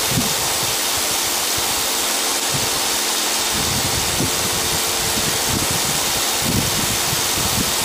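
Steady noise of running aggregate plant machinery, crushed stone feeding and conveying, with faint engine hum, while wind gusts on the microphone.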